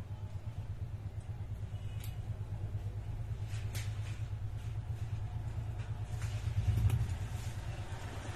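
A steady low hum, with a few light clicks as the metal snap hooks of a leather bag's detachable strap are handled and clipped onto its rings, the last ones about seven seconds in.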